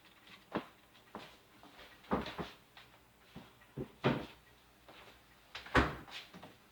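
A series of separate knocks and clunks as kitchen utensils and containers are handled and set down on a countertop, about six in all, the loudest near the end.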